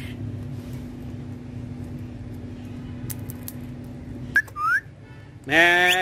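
Indian ringneck parakeet giving a short rising whistle about four seconds in, then a louder, rising whistled call near the end, over a steady low hum.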